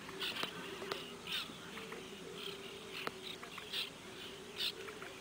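Many wild marsh birds calling at once, a busy chorus of short, high calls coming several times a second, over a steady low drone.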